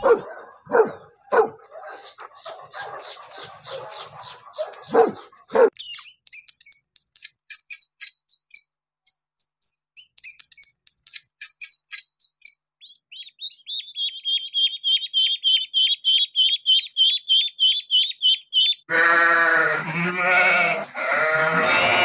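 A run of animal calls: a dog's short, sharp calls for about the first six seconds, then high, thin chirps that settle into a quick, even series of about four a second, and from about three seconds before the end, sheep bleating.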